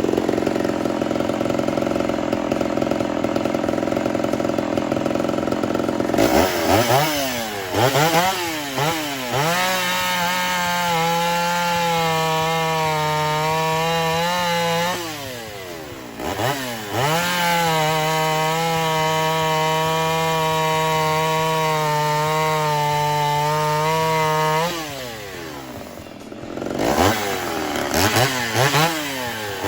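Ported Homelite Super XL-130 two-stroke chainsaw cutting into wood for about six seconds, then blipped up and down and held at wide-open throttle off the wood in two long steady runs, dropping back between them and revving up again near the end. The high-speed carburetor needle is being tuned a quarter turn at a time after a timing advance.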